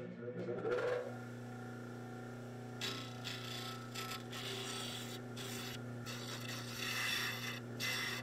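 Bench disc sander running with a steady motor hum while a small tupelo wood block is pressed against the spinning sanding disc. The wood grinds in several passes from about three seconds in, with short breaks between them, as the lure body is shaped.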